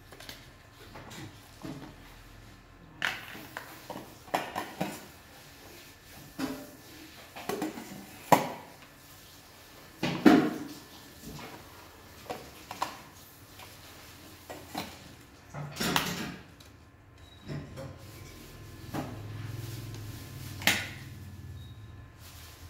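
Irregular clicks and knocks of a thermal lunch jar's plastic lids and inner containers being opened, lifted out and handled, with a few louder knocks among them.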